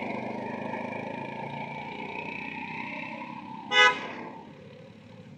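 Vehicle engine noise fading away, then one short vehicle-horn toot just under four seconds in.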